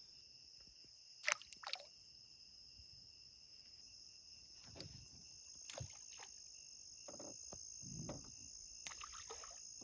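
Steady high-pitched chirring of night insects, with a few sharp knocks and handling rustles from the boat in between.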